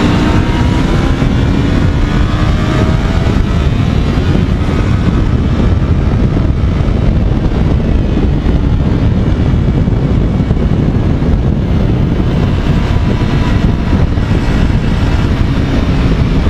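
Sport motorcycle engine pulling hard at high speed under acceleration, its pitch rising slowly at first, mixed with heavy wind rush over the camera microphone.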